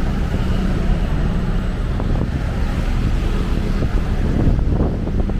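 Steady city street noise: a low traffic rumble with wind buffeting the microphone.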